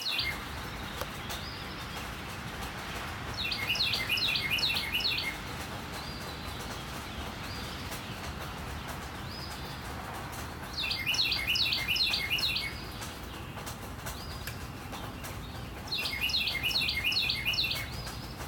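Northern cardinal singing three phrases, each a quick run of about ten repeated slurred whistles, with steady rain hissing in the background.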